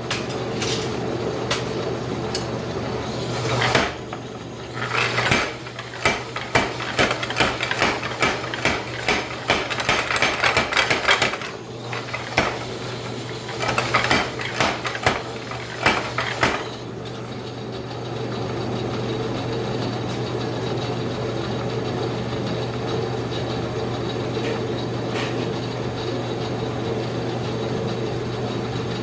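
Mechanical power hammer working hot steel through a flatter: runs of rapid metallic blows from about five seconds in until about sixteen seconds, with a brief pause near the middle, over a steady hum that carries on alone after the hammering stops.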